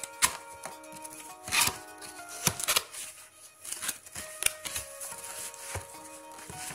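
Cardboard box flaps and a plastic bag being handled, giving irregular rustles, scrapes and sharp clicks. Soft background music with held notes plays underneath.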